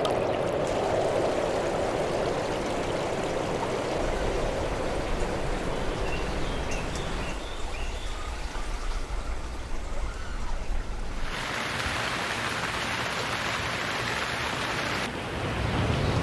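Running water, a steady rushing noise whose character changes abruptly several times: a low rumble comes in about four seconds in, the sound thins around the middle, and it turns brighter and hissier from about eleven seconds in.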